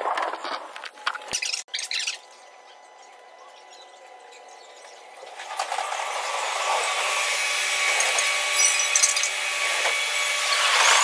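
Train running noise that cuts off about two seconds in. After a quiet stretch, a subway train's running noise and steady motor whine build up, loudest near the end as it pulls into the platform.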